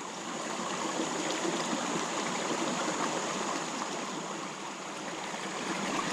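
Creek water flowing, a steady rushing hiss.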